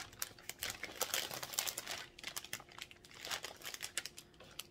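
Clear plastic sleeve around a flower bouquet crinkling as it is handled close to the microphone: an irregular run of crackles.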